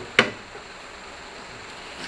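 A single sharp knock with a brief ringing tail, like metal striking metal, about a fifth of a second in, over a steady low hiss.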